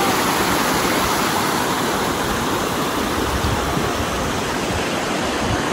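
Steady rush of water from a shallow rocky stream spilling over small rapids.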